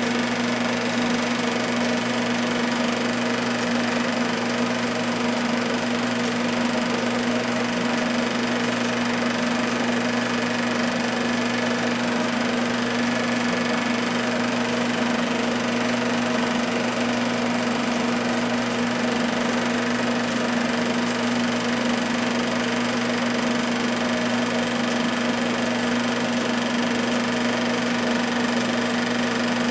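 A home-movie film projector running: a steady mechanical whir with a constant low hum.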